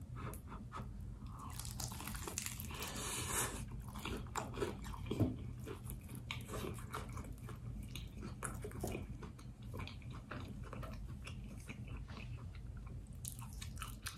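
Close-up eating sounds: a bite into a crispy fried egg roll with a crunch, then chewing and wet mouth sounds with many small crisp clicks. Near the end a paper napkin rustles as the mouth is wiped.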